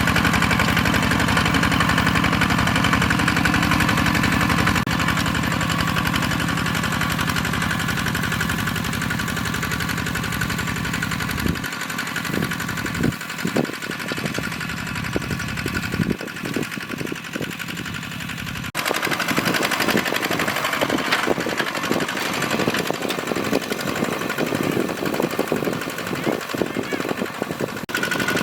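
Hand-tractor diesel engine running steadily under load, with a rapid knocking beat. The sound changes abruptly twice, about twelve and nineteen seconds in.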